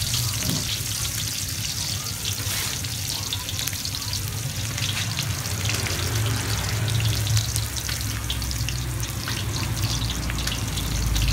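Garlic and onion sizzling in hot oil in a large steel wok, a steady frying hiss full of small crackling pops, over a low steady hum.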